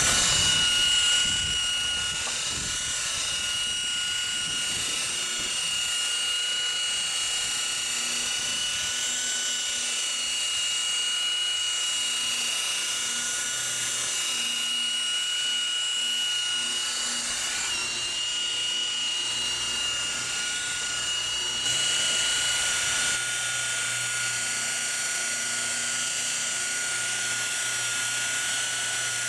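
Electric rotary polisher with a round buffing pad running at a steady speed against a car's painted hood, a continuous high motor whine over a hiss of the pad on the paint. It gets briefly louder about three quarters of the way through.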